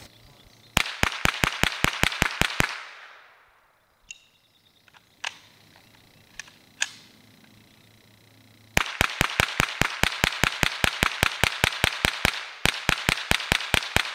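Colt M4 Carbine .22LR, a Walther-made blowback rimfire rifle, firing fast semi-automatic strings of shots at about five a second. A string of about ten shots is followed by a few quieter clicks and knocks of a magazine change, then a long string that breaks briefly near the end and resumes.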